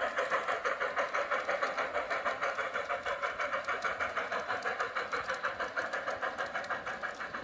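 G-scale model steam locomotive (a streamlined double Hudson Garratt) chuffing evenly and rapidly, about six chuffs a second, as it pulls a long freight train up a grade.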